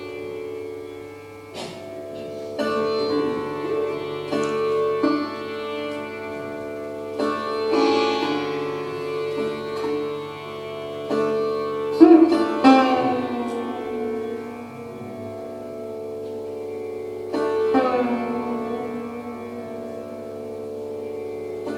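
Sitar playing slowly: single plucked notes spaced a second to several seconds apart over a steady drone, with some notes bent downward in pitch after the pluck, about halfway through and again near the end.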